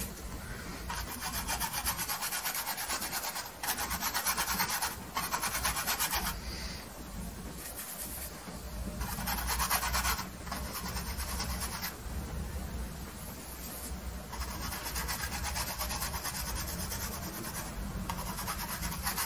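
Paintbrush bristles scrubbing oil paint onto a stretched canvas: scratchy rubbing in repeated runs of quick strokes, each run lasting one to three seconds, with short pauses between runs.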